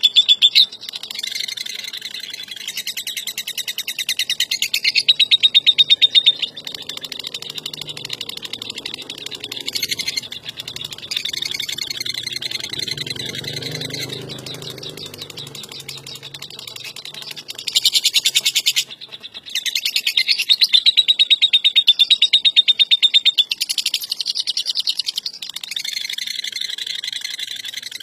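Lovebird chattering in long, very rapid, shrill trills: the continuous 'ngekek' chatter that is prized in lovebird song contests. It comes in several loud stretches of a few seconds each, with quieter chatter in between.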